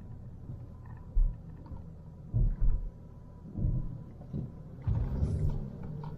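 Van driving in town heard from inside the cabin: a steady low road and engine rumble with a few low thumps about a second apart and a louder patch near the end.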